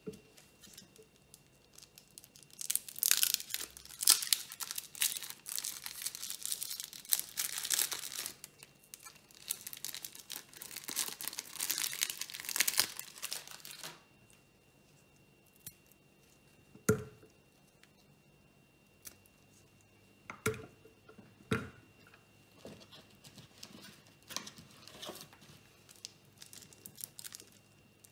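Foil wrapper of a Ferrero Duplo chocolate bar crinkling and tearing as it is peeled open by hand, for about ten seconds. Then come a few sharp knocks as chocolate pieces go into a glass blender jar, with light rustling.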